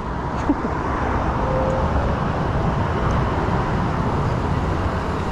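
Vehicle engine running with tyre and road noise as it moves slowly, heard as a steady low rumble from inside the cab, with a brief click about half a second in.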